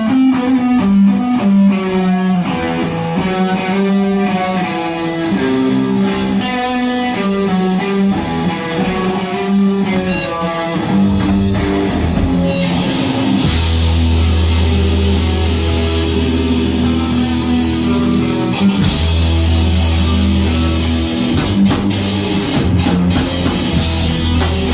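Thrash metal band playing live: electric guitars pick out a riff, then about twelve seconds in the full band crashes in with heavy bass and drums and cymbals.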